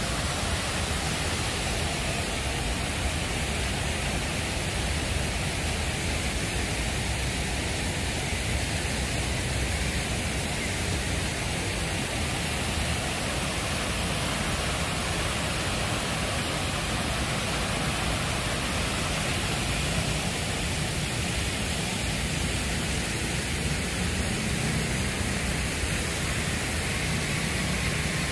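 Fountain water splashing and cascading in a steady, unbroken rush.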